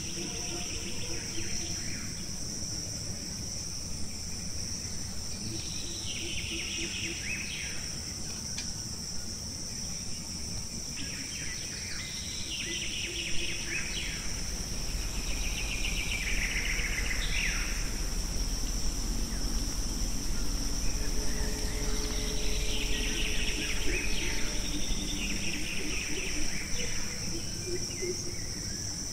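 Forest ambience: a steady high-pitched insect drone, with bird calls coming in short bursts every few seconds. A low rumble joins about halfway through.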